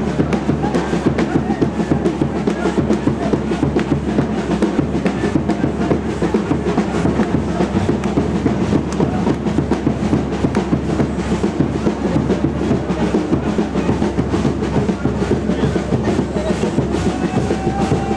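Music with fast, continuous drumming over a steady low drone; a few held higher notes come in near the end.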